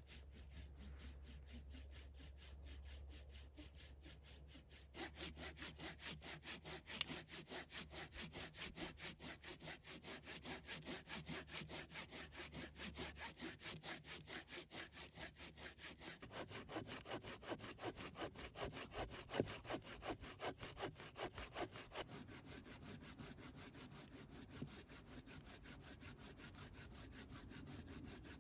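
Hand saw cutting through wood in fast, even back-and-forth strokes, getting louder about five seconds in, with an occasional sharper click.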